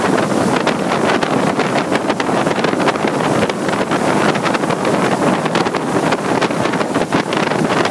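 Strong storm wind blowing and buffeting the microphone, a loud, even rush with constant small gusts.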